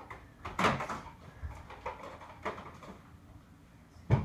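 Several scattered knocks and clacks of Nerf gear being handled. The loudest comes about half a second in and another sharp one near the end.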